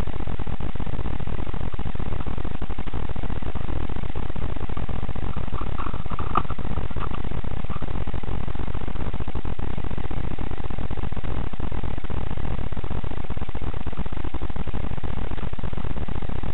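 Steady low rumbling noise picked up by a cheap action camera's built-in microphone. A faint, brief higher sound comes about six seconds in.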